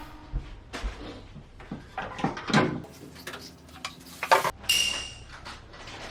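Irregular knocks, clicks and short clatters of things being handled in a kitchen, as cupboards, drawers and doors are opened and shut and items are moved; one clink about three-quarters of the way through rings briefly.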